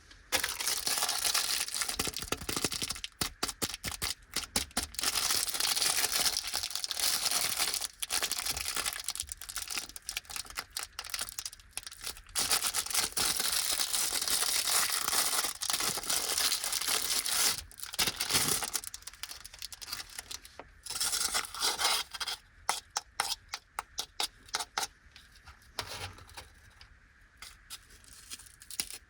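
Plastic snack packaging crinkling and tearing as a bag of Anpanman vegetable rice crackers is opened, dense and continuous for about the first two thirds. After that it thins to lighter separate rustles and clicks as the wrapped crackers are handled.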